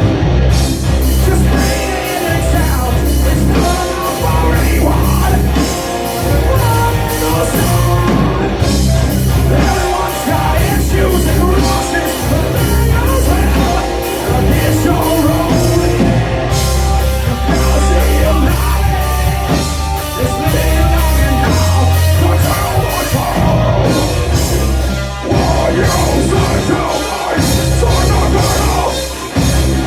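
A rock band playing loud and live, with drums, bass and guitars, the drum hits keeping a steady beat.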